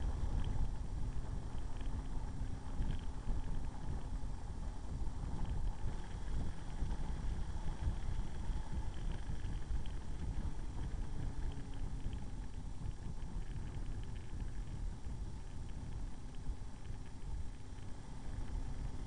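Motorcycle riding at road speed: its engine running steadily, mixed with a heavy, rumbling rush of wind on the microphone.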